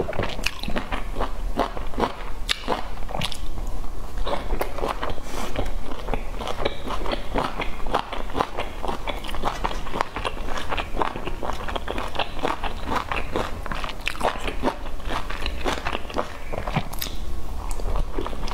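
Close-miked chewing of pan-fried dumplings: a dense, continuous run of quick wet clicks and smacks of mouth and teeth.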